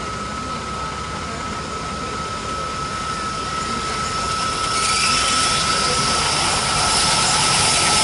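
WDM3D ALCO diesel locomotive approaching on the adjacent line, its engine and wheel noise growing steadily louder, with a jump in loudness about five seconds in. A steady high-pitched tone runs underneath until near the end.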